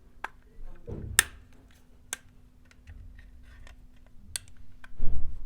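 Scattered sharp plastic clicks and snaps from a smoke alarm's casing being handled and pried apart with a tool, with a dull knock about a second in and a louder one near the end. A faint steady hum runs underneath.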